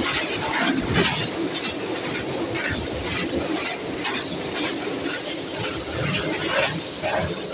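Passenger train running across a steel truss bridge: wheels and coaches rumbling on the rails with irregular clattering knocks, about one a second.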